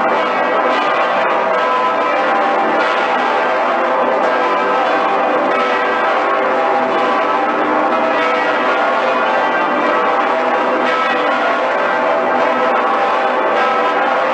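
Full peal of Cologne Cathedral's swinging bells, the great St. Peter's Bell and Pretiosa among them, all ringing together in a loud, continuous wash of overlapping tones.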